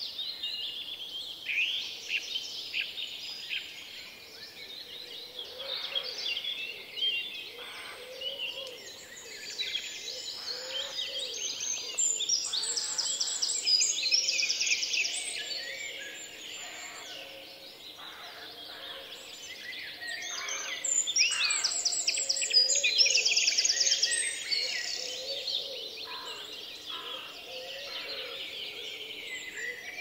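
A chorus of small songbirds singing and chirping together: many overlapping whistled notes and rapid trills, swelling louder around the middle and again in the second half.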